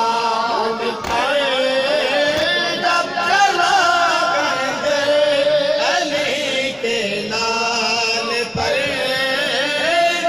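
Male mourners' voices chanting a noha (Muharram lament) in a sustained, melodic line. A few sharp smacks sound near the start and again near the end.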